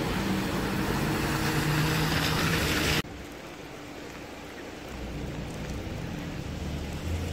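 Steady rush of rain and water with a car engine humming as vehicles move through floodwater on a street. About three seconds in the sound cuts off abruptly to a quieter, steady wash of rain and distant traffic.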